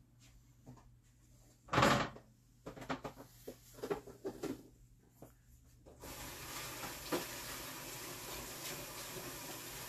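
A sharp knock, then a string of lighter clicks and clatters of plastic kitchenware being handled; about six seconds in a kitchen tap turns on and water runs steadily into the sink.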